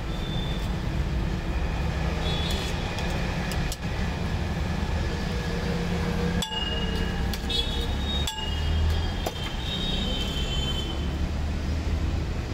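Busy street traffic rumbling steadily, with scattered short clinks and brief high-pitched squeals or tones over it.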